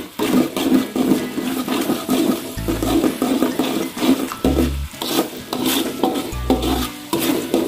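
Metal spatula stirring thick, simmering barbecue sauce in a metal wok, scraping the pan and sloshing the sauce in repeated back-and-forth strokes as it cooks down to thicken.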